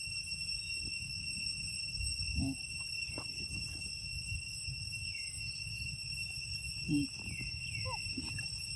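Insects trilling in one steady, unbroken high-pitched drone. Two brief low calls stand out above it, about two and a half and seven seconds in.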